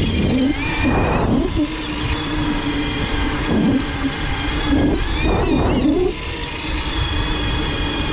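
Bafang BBS-HD mid-drive motor whining under power on a fat-tire e-bike, with a steady stack of tones over wind and road rumble. The whine wavers in pitch briefly about a second in and again about five seconds in.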